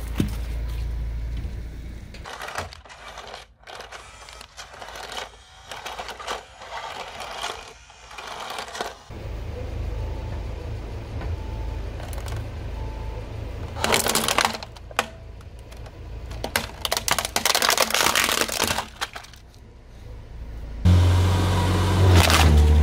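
A car tyre crushing things on paving stones: crinkling and crackling of a snack packet being flattened, then plastic cracking and snapping in bursts as a toy model car is pressed under the tyre, over a steady low engine rumble. A loud low drone comes in near the end.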